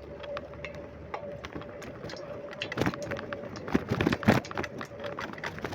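Bicycle ride noise: irregular clicks and rattles over a steady hum, busiest and loudest around the middle.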